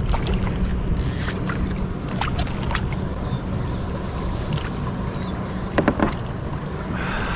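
Hooked sheepshead thrashing and splashing at the surface beside a kayak, with scattered short splashes and knocks and a louder pair about six seconds in as it is taken by hand, over a steady low rumble.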